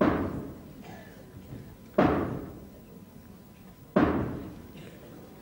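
Three heavy blows on the stage floor, about two seconds apart, each ringing on in the hall: the traditional 'trois coups' struck to signal that the curtain is about to rise.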